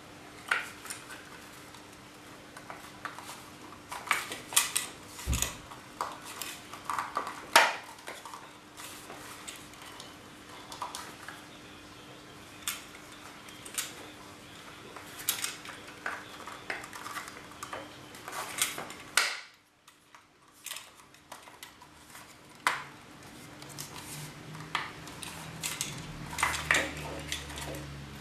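Irregular small clicks, clinks and clatter of a plastic hoist pendant control and small parts being handled and taken apart on a metal workbench, with a steady faint hum underneath.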